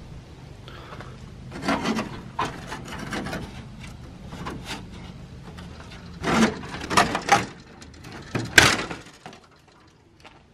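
Irregular wooden knocks, scrapes and rubs from handling the wall panels and fittings of an abandoned caravan with a gloved hand, with one sharper knock about eight and a half seconds in.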